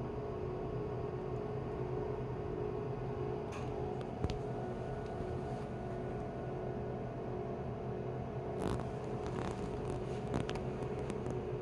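Steady low electrical hum of a switched-on UV and anion sterilizing storage cabinet, with a few faint clicks about four, nine and ten seconds in.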